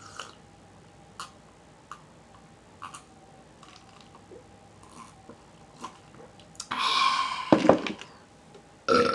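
Close-miked eating sounds: soft chewing and lip-smacking clicks about once a second. A louder, breathy sound lasts about a second near the end, and a burp starts right at the end.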